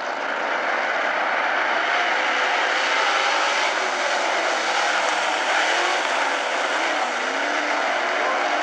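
A pack of dirt-track modified race cars racing together at full throttle, their engines blending into one loud, steady sound with individual engines rising and falling in pitch as they go through the turn.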